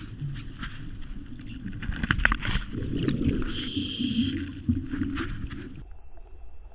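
A scuba or hookah diver breathing through a regulator underwater: a hiss of inhaled air about three and a half seconds in, a low bubbling rumble of exhaled air, and a few sharp clicks. The breathing sounds stop suddenly about six seconds in.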